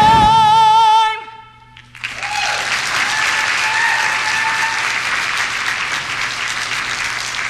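A woman's voice holds the last sung note with a wide vibrato over a backing track, cutting off about a second in. After a short hush, audience applause and cheering start about two seconds in and carry on steadily.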